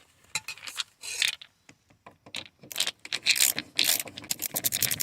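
A screwdriver backing a screw out of a car door's interior trim panel. It makes a run of quick clicks and scrapes that grows denser about two seconds in.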